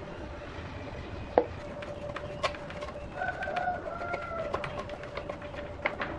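A rooster crows once, over scattered light clicks and a steady hum.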